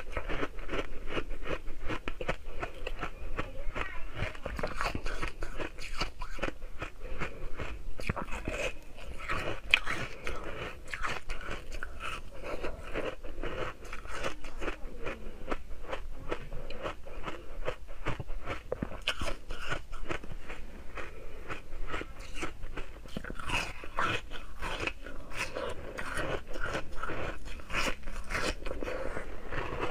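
A person biting and chewing frozen milk ice close to the microphone: rapid, continual crunching and cracking as the ice breaks between the teeth.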